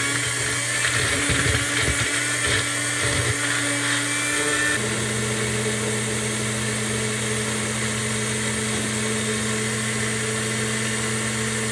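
Personal bullet-style blender running, pressed down on its cup, grinding diced raw potato. For the first five seconds the chunks rattle against the cup; then the sound settles into a steadier, slightly lower hum as the potato turns to a smooth pulp.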